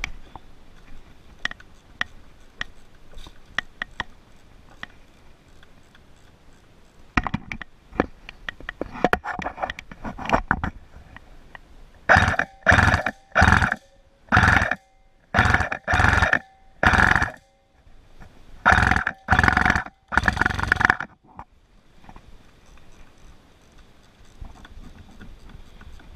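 KWA H&K G36C airsoft electric rifle with a metal gearbox firing short full-auto bursts, about nine in a row, each roughly half a second long. Before them come scattered sharp clicks and a rapid run of clicks.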